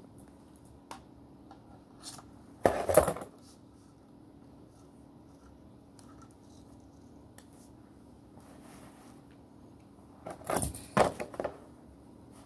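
Hard plastic toy playset pieces clattering and knocking together as they are handled, with a loud clatter about three seconds in and another run of knocks near the end.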